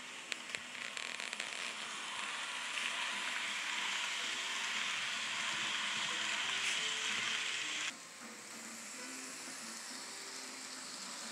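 N scale model passenger train running past close by. A run of sharp clicks comes first, then a steady, loud whirring hiss of wheels on track and motor that drops abruptly to a quieter rolling hiss about eight seconds in.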